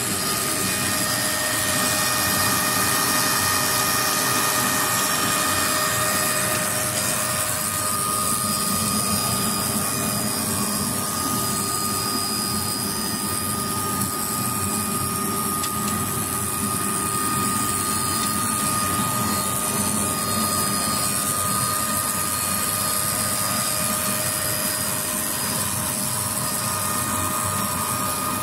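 BXJ-3S bamboo skewer sharpening machine running steadily, a constant machine whine of several steady tones over a broad hiss.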